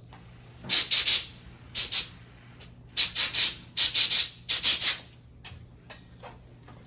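Aerosol carburetor cleaner sprayed in short hissing squirts, about a dozen in quick groups from just under a second in until about five seconds in, into a clogged brass jet from a Briggs & Stratton lawn mower carburetor to clear the blockage.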